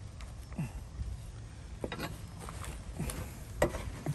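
Scattered knocks, clicks and scrapes of a metal pry bar levering in a cavity of a fibreglass hull, working loose a block of rotted wet plywood and mahogany core under the mast step.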